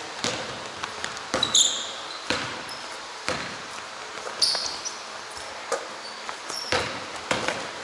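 Basketball bouncing on a hardwood gym floor during play: sharp thuds at an uneven pace of about one a second, with a couple of short high squeaks of sneakers on the court.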